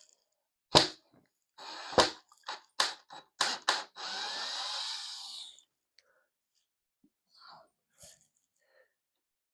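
Plastic slot-car track sections being handled and taken apart: about six sharp clacks and knocks in quick succession, then a scraping slide of about a second and a half, followed by a few faint small clicks.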